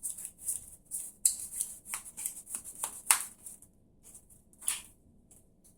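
Trading cards being drawn and handled on the table: a run of short rustles and light clicks, going quieter for about a second two-thirds through.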